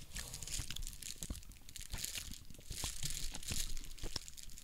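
Clear plastic candy bag crinkling as it is handled and turned over, in several short spells with small clicks between them.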